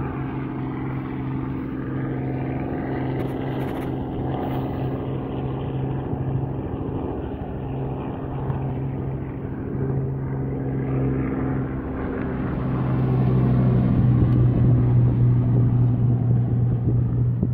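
A vehicle engine running at a steady, unchanging pitch, a constant drone that grows louder about two-thirds of the way through.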